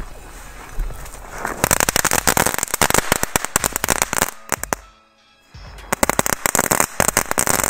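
Small ground firework spraying sparks with dense, rapid crackling, in two runs of a few seconds each with a brief lull between them.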